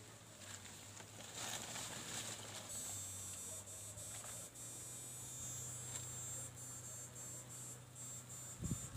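Insects buzzing at a high pitch, stronger from about three seconds in and broken by short regular gaps, over a steady low hum, with rustling through tall grass about a second and a half in.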